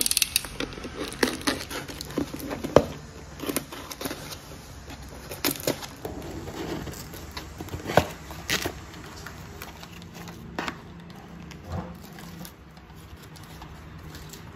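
A cardboard parcel being unboxed by hand: packing tape cut and pulled off, then the cardboard lid and flaps and tissue paper rustling and crinkling, with scattered sharp snaps and knocks, the loudest about three and eight seconds in.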